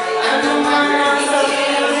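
A karaoke song playing, with people singing along to the backing track.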